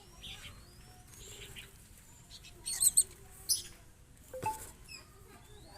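Small birds chirping in short, high calls, loudest in a brief cluster about halfway through, over faint chirping in the background.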